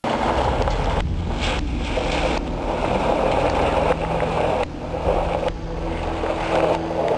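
An SUV driving across a gravel lot, its engine and tyres rumbling under heavy wind noise on the microphone. The sound breaks off and resumes abruptly several times.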